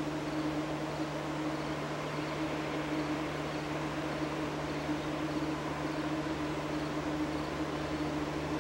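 Diesel freight locomotives running with a steady, even hum.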